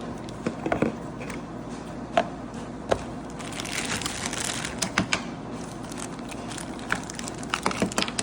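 Plastic packaging crinkling and rustling as small plastic doll accessories are unwrapped, with scattered light clicks and knocks of the pieces being handled; a longer spell of crinkling starts about three and a half seconds in.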